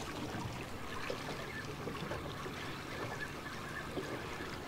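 Water lapping and trickling against the hull of a small drifting boat: a steady low wash with a few faint knocks.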